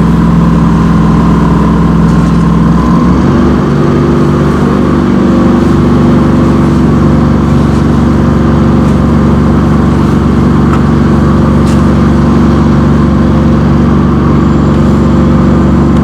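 An engine running steadily, its pitch shifting about three seconds in and then holding.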